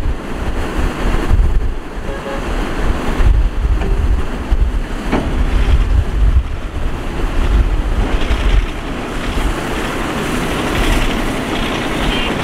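Wind buffeting the microphone in gusts, over the steady running of heavy diesel machinery: a Shantui ME315 crawler excavator working beside a Shacman dump truck.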